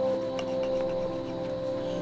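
Soft background music of held, ringing notes, with a few faint clicks about half a second and a second in.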